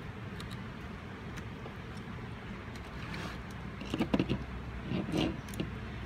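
Steady low room hum, then from about four seconds in a few light clicks and knocks of a thin metal I/O back plate being picked up and handled on a desk, with a sharper knock at the very end.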